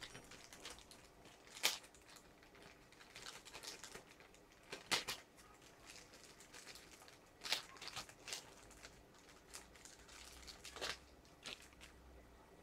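Parts of a WE M4 gas blowback airsoft rifle being handled during assembly: scattered clicks and knocks with light rustling in between. A few sharper clacks stand out, two of them close together about five seconds in.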